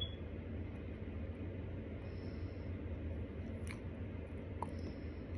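A person chewing a mouthful of starch close to the microphone, over a steady low hum, with one sharp click about three and a half seconds in.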